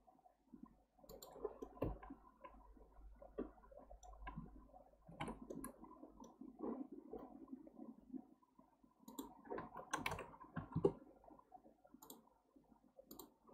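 Faint computer mouse and keyboard clicks, scattered in small clusters, over a low rustle of desk handling.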